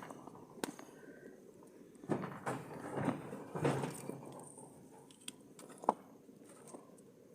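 Scattered light knocks and rustling handling noises, busiest a couple of seconds in, with a single sharp click about six seconds in.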